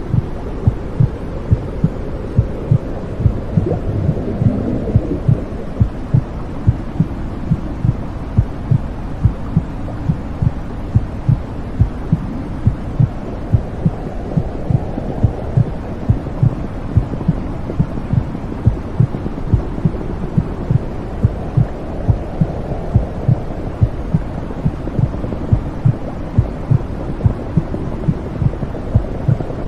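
Womb sound for soothing a baby to sleep: a steady heartbeat thumping at an even pace over a continuous low whooshing rumble that slowly swells and fades.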